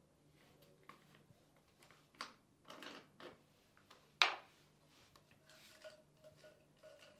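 A few scattered sharp clicks and taps at an uneven pace, the loudest about four seconds in, over a faint steady hum of room tone.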